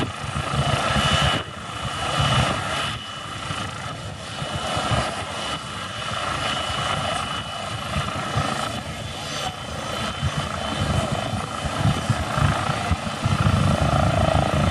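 Turbine helicopter running at close range with its main rotor turning: a steady high turbine whine over the rotor's rapid low thudding, dipping briefly about a second and a half in.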